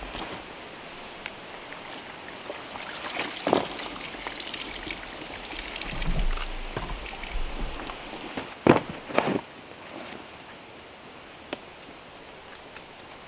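Liquid pouring and trickling off freshly soaked clothing back into a plastic bucket as the garment is lifted out to drip. A few knocks from handling, one about three and a half seconds in and two close together near nine seconds.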